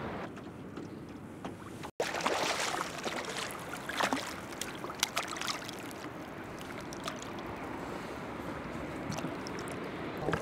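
A small hooked zander splashing at the water's surface as it is brought in to the boat: a run of sharp splashes starting about two seconds in, settling to lighter lapping after the middle.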